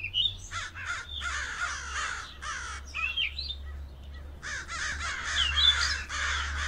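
Crows cawing again and again in harsh, rough calls, with a brief lull about three and a half seconds in. A low steady hum lies underneath.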